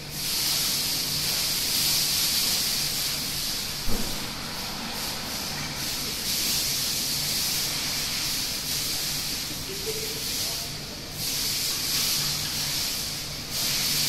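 Steady rush of splashing pool water, with a low hum underneath and a single sharp knock about four seconds in.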